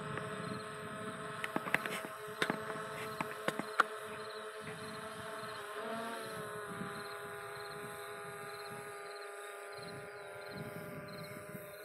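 FiMI X8 SE quadcopter's propellers hovering overhead with a steady buzzing hum, whose pitch bends about halfway through as the drone moves off to the side. Wind rumbles on the microphone, and a few sharp clicks come in the first four seconds.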